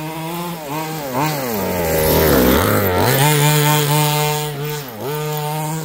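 Small two-stroke petrol engine of a fifth-scale RC buggy running, its pitch dipping about a second in, falling low and climbing back up around two to three seconds in, the loudest part, and dipping briefly again near the end.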